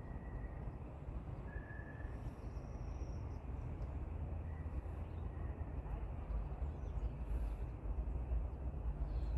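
Outdoor background noise: a steady low rumble with a few short, faint bird chirps scattered through it.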